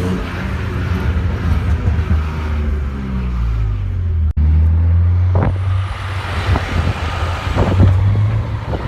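Loud car exhaust running at low revs, its note dropping at the start and then holding a steady low rumble. After a sudden break about halfway, a run of sharp cracks comes through over the rumble.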